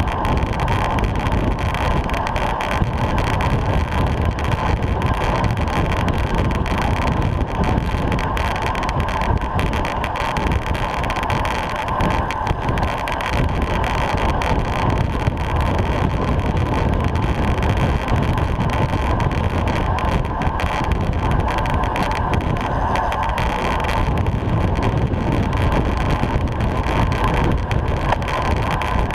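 Steady wind rush over a bike-mounted action camera's microphone at about 30 mph, mixed with the hum of road-bike tyres on tarmac.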